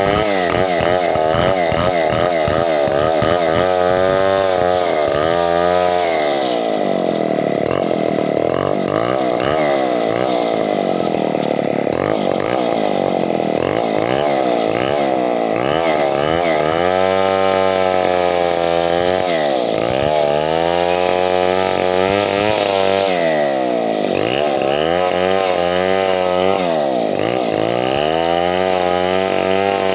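Two-stroke chainsaw running hard, its engine pitch dipping and climbing again and again as it cuts through wood.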